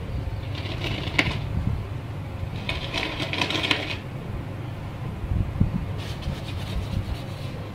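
Light metallic clicking and rattling in three short spells, about a second in, around three seconds in and around six seconds in, over a steady low rumble.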